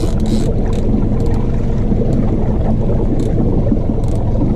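Suzuki outboard motor running at low trolling speed, a steady low drone, with water washing at the stern and a few short splashy hisses.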